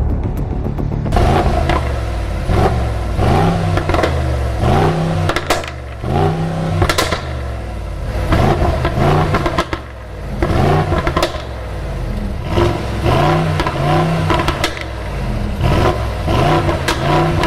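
Mercedes-AMG GLE 63 S's 4.0-litre V8 running at idle, then, about a second in, revved in a long series of quick throttle blips, each rising and falling in pitch, with a few sharp cracks between them.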